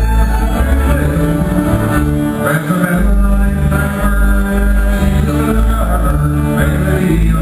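Live country-style band music with guitar over a steady, stepping bass line, with a man singing.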